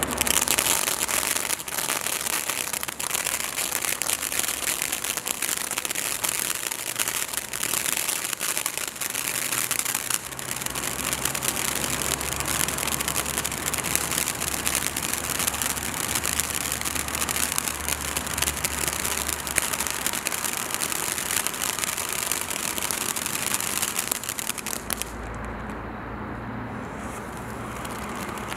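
Ghosa fountain firework by Standard Fireworks burning: a steady hiss of spraying sparks with dense crackling throughout. About 25 seconds in the hiss and crackle thin out and drop in loudness.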